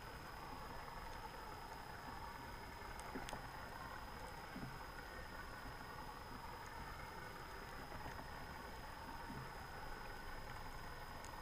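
Underwater ambience heard through a submerged camera: a steady hiss with a thin, faint high whine and a few isolated sharp clicks.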